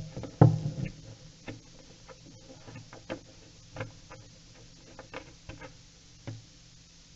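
Irregular light clicks and taps of small hand tools and a freshly removed screw being handled, loudest just after the start and thinning out toward the end.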